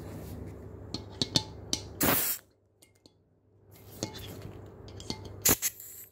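Gas magazine of a TTI Pit Viper airsoft pistol being charged: a few light plastic-and-metal clicks as it is handled, then two short hisses of gas, about two seconds in and again near the end.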